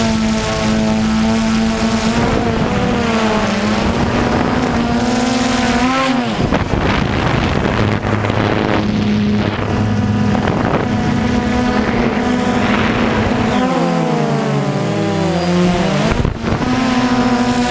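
Quadcopter drone's electric motors and propellers whining steadily, heard close from the camera on the drone itself. The pitch sweeps up and down as the drone manoeuvres, around six seconds in and again between about fourteen and sixteen seconds in.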